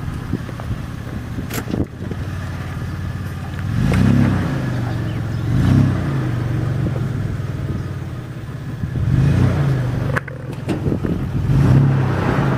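Third-generation Toyota 4Runner engine running at low revs, revved up briefly about four times as it crawls up a rutted dirt climb.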